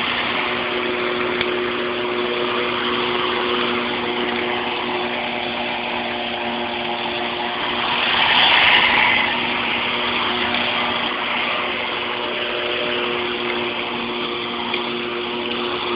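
Makita UM401D 24-volt cordless lawnmower running, its electric motor and spinning blade giving a steady hum while it cuts grass. The sound swells louder for about a second around eight seconds in.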